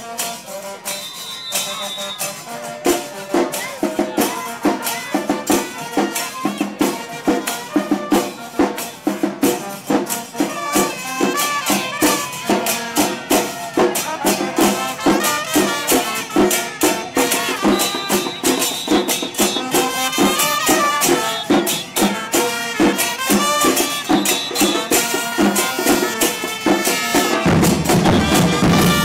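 Live carnival band music: a fast, dense percussion beat of drum and jingling strikes with a melody over it. A deep drum comes in near the end and the music gets louder.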